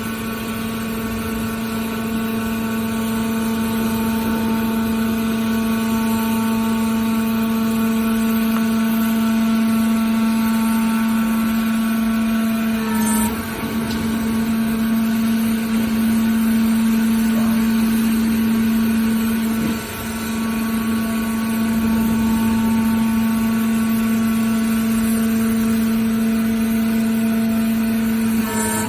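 Horizontal baler's hydraulic power unit running with a steady, even hum, its pitch holding throughout, with brief dips about 13 and 20 seconds in.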